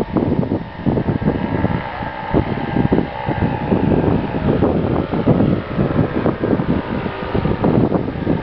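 A paramotor's engine and propeller drone steadily as it flies in low toward the listener. Heavy wind buffeting on the microphone is the loudest sound.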